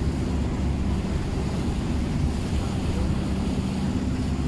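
Steady low drone of a boat's engine under way, with wind buffeting the microphone and the sea washing past.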